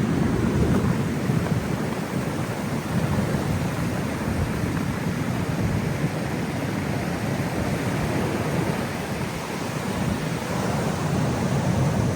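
Heavy ocean surf breaking and rushing on the shore, mixed with wind buffeting the microphone in a steady low rumble.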